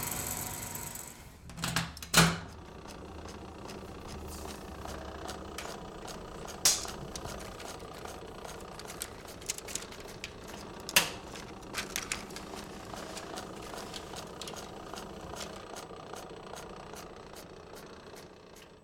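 Film projector running with a steady mechanical clatter of small rapid clicks over a low hum, and a few sharper clicks. It fades out near the end.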